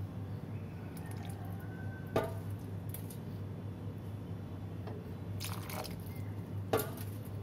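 Chicken broth simmering in a pan, a soft liquid bubbling over a steady low hum, with two sharp clinks, one about two seconds in and one near the end.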